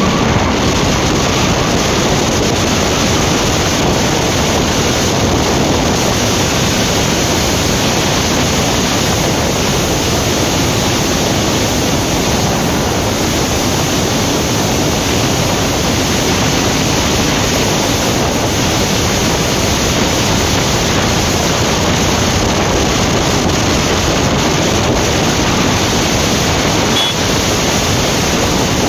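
Steady, loud rush of wind over the microphone of a Yamaha R15 V3 motorcycle cruising in sixth gear at about 70 to 105 km/h, with no clear engine note through the noise.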